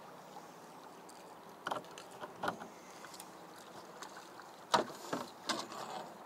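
Several sharp knocks and clatters of fishing gear and a landing net handle against an aluminum boat while a hooked catfish is brought in, the loudest a little under five seconds in, over a steady low background noise.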